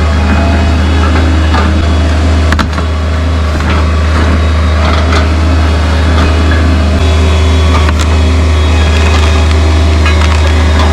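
Truck engine idling steadily, with a couple of sharp knocks over it, one about a third of the way in and one near the end.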